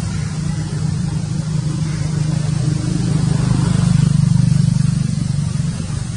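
An engine running steadily with a low hum, growing louder about four seconds in and then easing off.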